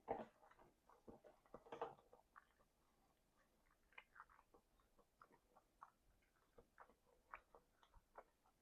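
Faint close-miked chewing with the mouth open: soft wet smacks and clicks, two louder ones near the start and about two seconds in, then a scatter of small ticks.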